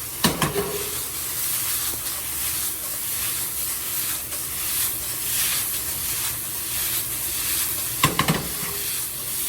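Fried rice sizzling in a hot pan as it is stirred and broken up, with a utensil knocking against the pan a few times just after the start and again near the end.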